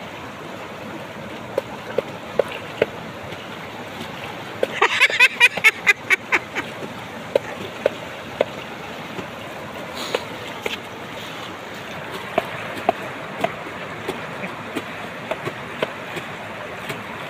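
Fast-flowing floodwater rushing steadily, with repeated small splashes and pours of water scooped up by hand. About five seconds in, a brief cluster of louder splashes with a run of high, warbling calls.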